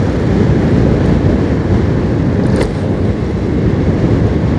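Motorcycle riding along a road: steady engine and road noise mixed with wind rumbling on the microphone.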